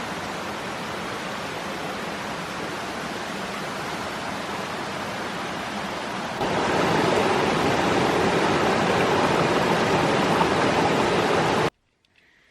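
Steady rushing water of a waterfall cascade. It gets louder about six seconds in and cuts off suddenly near the end.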